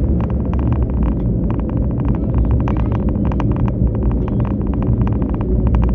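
A vehicle driving along a paved road: a loud, steady low rumble of road noise and wind on the microphone, with rapid, irregular clicks and crackles over it.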